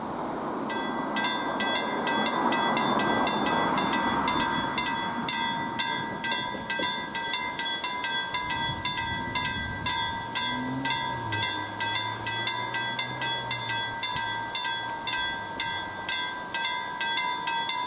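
Level crossing warning bell starting about a second in and ringing in rapid, even strokes, about three a second, signalling an approaching train as the crossing closes. A car engine is heard passing around the middle.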